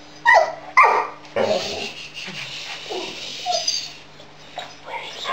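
A dog's whining 'talking' vocalizations: two short calls falling in pitch in the first second, then a longer breathy, noisy sound that fades out.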